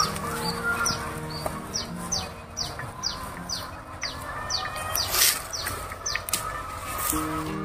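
Birds chirping: a steady run of short, falling chirps, about two a second, over faint background music, with a few brief rustles, the loudest about five seconds in.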